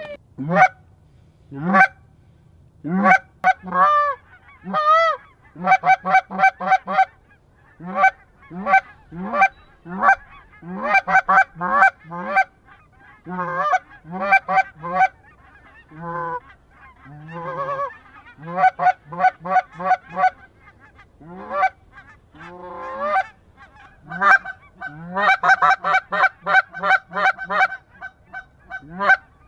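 Goose honks and clucks called over and over in quick runs of short notes, several a second, with brief pauses between runs.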